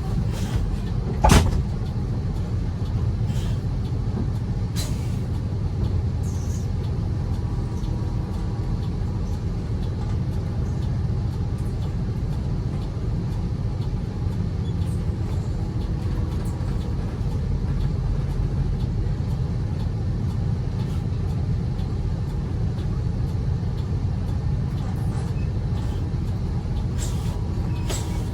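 Steady low rumble of a road vehicle's engine running, with one sharp knock about a second in.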